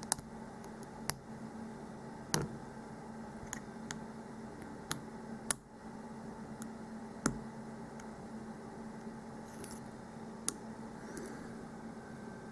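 Hook pick clicking against the spring-loaded pins of a mortise lock cylinder under tension: about nine small, sharp clicks at irregular intervals as pins are lifted and set, over a steady low hum.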